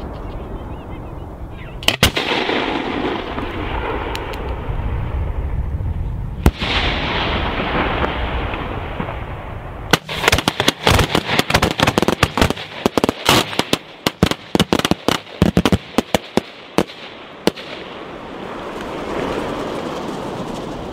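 Fireworks display: two heavy shell bursts about four seconds apart, each followed by a long rumbling echo. About ten seconds in comes a dense run of rapid sharp cracks lasting about seven seconds.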